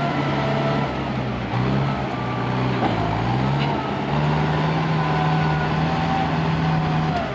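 Mitsubishi Fuso ten-wheel dump truck's turbo diesel engine working under load as the bogged truck tries to drive out of deep mud. Its pitch dips a little over a second in, climbs again around three seconds, holds steady, then drops near the end.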